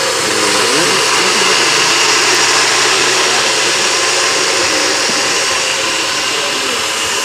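NutriBullet blender motor running at full speed, pureeing peppers and green seasoning into a wet paste: a loud, steady whirring.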